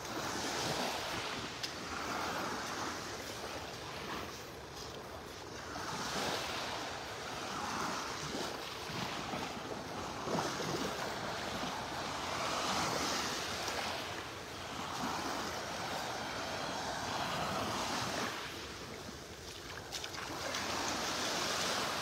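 Small waves from a calm sea washing onto a sandy shore. A soft rush swells and fades every two to three seconds as each one breaks and runs up the sand.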